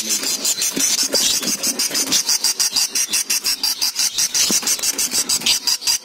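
Cricket chirping in a fast, even, high-pitched trill of about ten pulses a second, with a few faint knocks.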